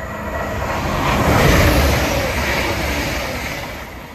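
Diesel multiple unit train passing through the station at speed: a rumble and rush of wheel and air noise that swells to a peak about a second and a half in, then fades as it goes by.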